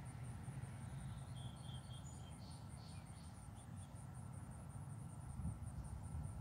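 Steady high-pitched insect chirping, a rapid train of pulses several times a second, over a low rumble. A few faint short bird chirps come in about one and a half to three and a half seconds in.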